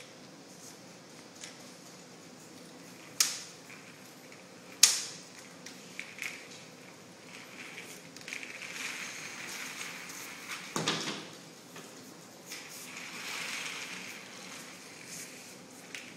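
Folding tower clothes-drying rack of wire shelves and plastic joints being folded and unfolded by hand: two sharp clicks about three and five seconds in, a clatter a little past the middle, and light rattling and scraping of the wire frame in between.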